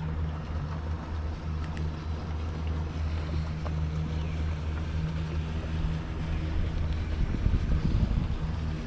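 Steady low hum of a Minn Kota Terrova electric trolling motor holding a small skiff in place. Wind gusts rumble on the microphone from about seven seconds in.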